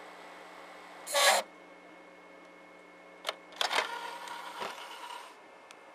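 SV2000 VHS/DVD recorder combo's mechanism running after eject is pressed: a short loud rush of noise about a second in, then a click and a motor whirring with a steady whine for about a second and a half. It is the strange noise that, by the owner's account, every one of these combos makes.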